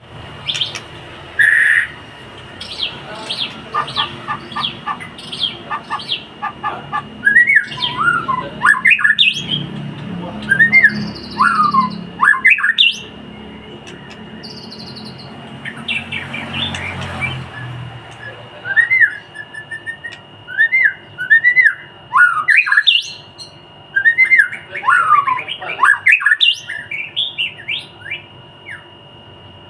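White-rumped shama (murai batu) singing: a varied song of loud whistled notes, rising and falling slurs and quick chirps, delivered in phrases with short pauses between them.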